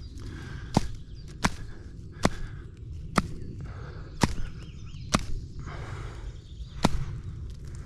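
Seven sharp knocks, repeated blows struck under a second or so apart, over low steady outdoor background noise.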